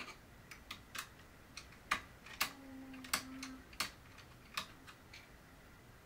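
Small precision screwdriver working screws out of a motherboard's metal M.2 heatsink cover: a dozen or so light, irregular metallic clicks and ticks, with a brief low hum near the middle.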